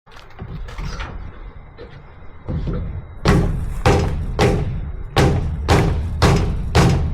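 Background music: heavy, booming drum beats, evenly spaced about one every 0.6 seconds, starting about three seconds in after a quieter lead-in.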